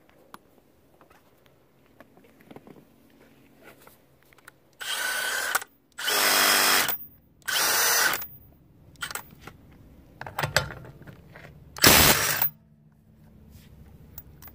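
Milwaukee M18 Fuel One-Key impact driver hammering on a car lug nut in several short bursts, the last the loudest, breaking loose a nut torqued to 150 ft-lbs.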